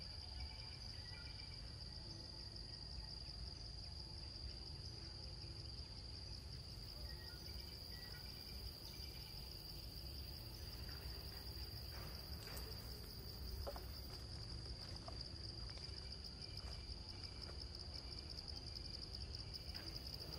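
Insects droning steadily in one high-pitched tone, over a low rumble, with a few faint clicks about midway.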